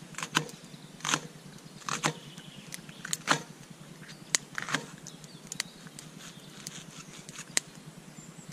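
Knife cutting onions on a board: short, sharp, irregular taps, roughly two a second.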